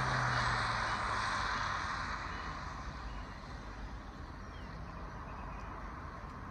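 Honda Civic Type R (FN2) driving away, its engine note and the tyre hiss on the wet road fading into the distance over the first two or three seconds. A faint steady background of distant traffic remains.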